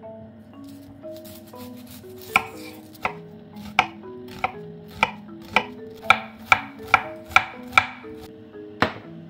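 Kitchen knife chopping an onion on a wooden cutting board: about a dozen sharp knocks, starting a couple of seconds in and coming faster in the middle, under soft background music.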